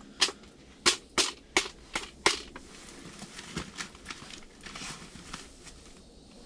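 Sharp clicks and snaps of fishing tackle being handled while picking a new lure, about six in the first two and a half seconds, then fainter ones.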